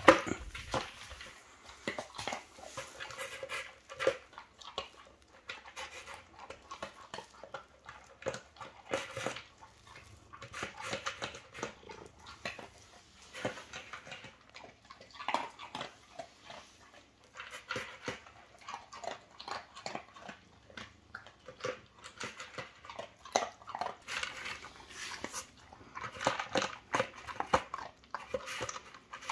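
Chocolate Labrador retriever eating dry kibble from a plastic slow-feeder bowl: irregular crunching and clicking of kibble as the dog noses and bites between the bowl's ridges. There is a knock as the bowl is set down on the floor at the very start.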